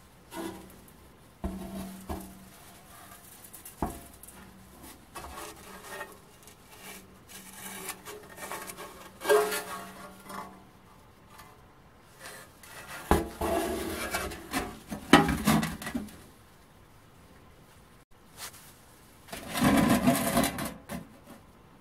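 Rusty steel machine-gun ammunition box being handled and turned over: scattered metal knocks, clanks and scraping, loudest in a burst a little past halfway and again near the end.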